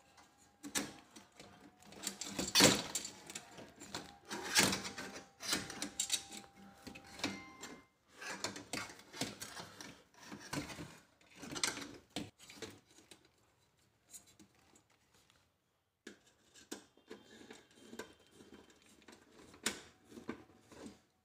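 Hand assembly of a metal chandelier frame: irregular clicks, clinks and light knocks of metal parts as a threaded rod is fitted into the frame and its nut tightened by hand, with a pause of about two seconds past the middle.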